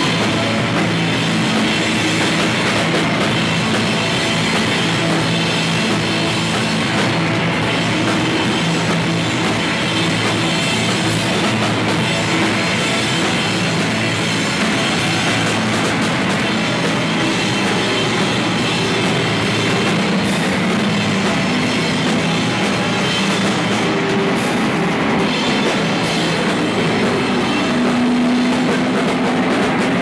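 Live rock band playing loud and without a break: electric guitars run through effects pedals over a drum kit with cymbals, a dense, steady wall of sound.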